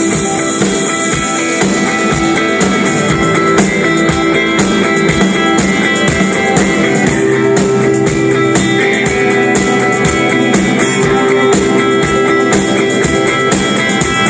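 Indie rock band playing live: electric guitars over a steady drum beat.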